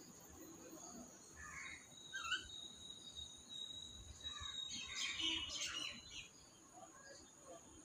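Faint bird chirps: a few short calls about two seconds in and a busier burst of chirping about five seconds in, over a steady high-pitched drone.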